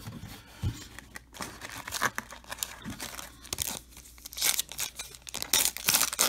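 Foil trading-card pack wrapper crinkling as it is handled, then torn open. The tearing and crackling are densest and loudest in the last two seconds.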